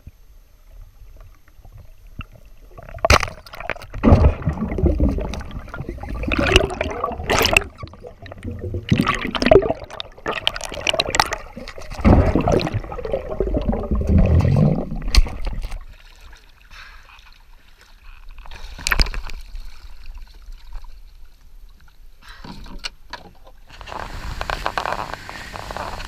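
Underwater gurgling and sloshing, with sharp knocks and clicks, as a speared yellowfin tuna is fought on the line. Near the end it gives way to a steady rush of wind and spray from a fast-moving boat.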